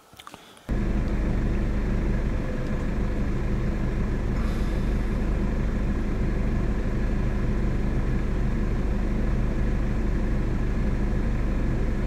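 A car driving: a steady engine drone with road noise, starting suddenly just under a second in.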